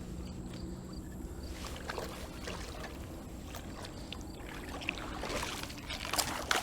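Water sloshing and splashing as a hooked carp is drawn in toward a landing net, getting busier near the end, over a low steady rumble.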